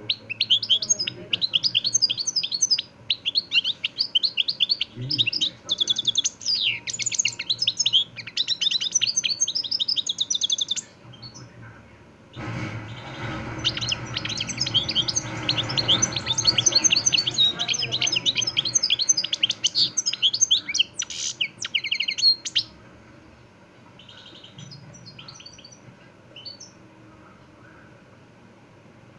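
Caged European goldfinch singing its fast twittering song of rapid high chirps and trills, in two long runs with a pause of about a second and a half between them, then only a few scattered notes near the end. A low steady noise sounds beneath the start of the second run.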